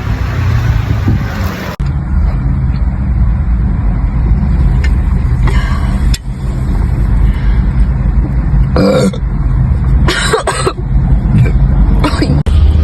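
A woman burping several times, short burps in the middle and latter part, over a steady low rumble.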